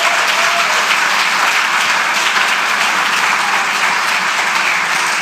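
Audience applauding steadily, a roomful of people clapping at an even level.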